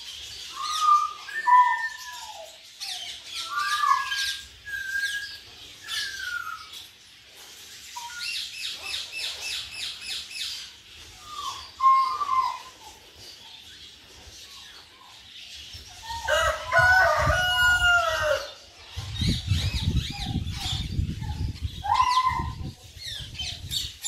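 Ringneck parakeets calling: short gliding squawks and chirps, a fast high trill about nine seconds in, and a dense burst of overlapping calls about two-thirds through, with a stretch of low rumbling under and after it.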